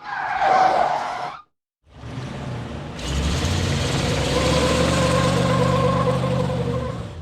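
A short pitched sound in the first second and a half. Then, after a brief silence, a car engine comes in and runs steadily, growing louder about three seconds in and easing off near the end as the car drives.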